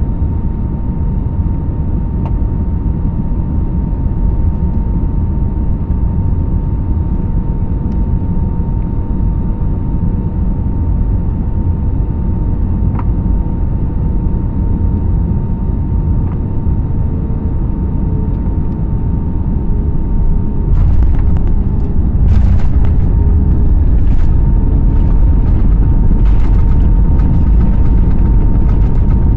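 Airbus A320neo cabin noise on final approach: steady engine and airflow noise with a constant hum. About two-thirds of the way through, the main wheels touch down and the noise steps up into a louder rumble with knocks and rattles as the airliner rolls down the runway with its spoilers raised.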